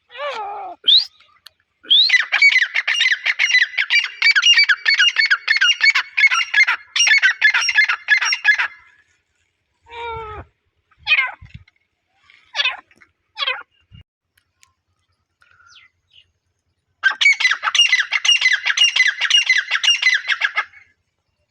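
Grey francolin (teetar) calling: two long bouts of fast, rapidly repeated call notes, one starting about 2 seconds in and lasting some seven seconds, the other near the end, with a few single down-sliding calls in between.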